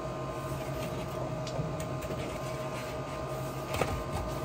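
Steady machine hum from the air handler and water heater equipment, with a few light taps and scrapes as a furnace air filter is pushed into its slot.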